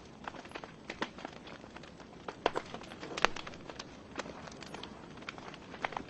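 Wood fire in a fireplace crackling: irregular sharp pops and snaps over a soft steady hiss of burning logs, the loudest pops about two and a half and three seconds in.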